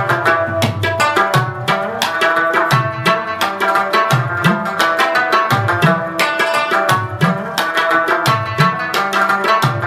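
Background music with a quick, steady drum beat over held melodic notes.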